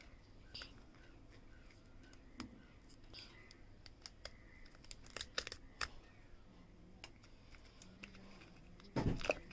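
Light clicks, taps and crinkles of small packaging being handled as a smartwatch charging cable is taken out, with a quick run of sharper clicks about five seconds in and a louder rustle near the end.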